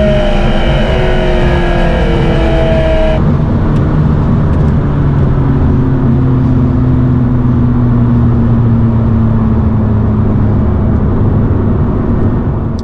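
McLaren MP4-12C twin-turbo V8 running under load, its pitch shifting. About three seconds in, the sound changes abruptly to a lower, steady drone that slowly falls in pitch.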